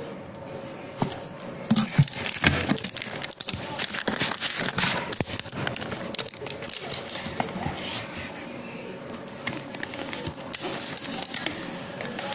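Plastic and foil packaging of a protein-powder tub crinkling and rustling as it is handled, with a few sharp knocks about two seconds in.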